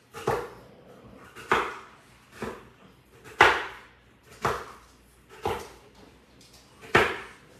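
Pampered Chef Quick Cup Slicer, a plastic cup with blades inside, pushed down over strawberries onto a wooden cutting board again and again. Each press makes a sharp clack as the blades slice through a berry, seven in all about a second apart.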